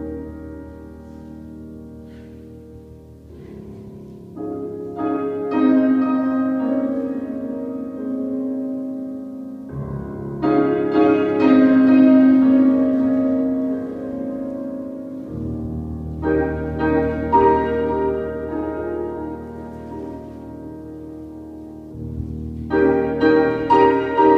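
Slow instrumental music led by piano, with held notes over a sustained bass, in phrases that swell and then fade about every five to six seconds.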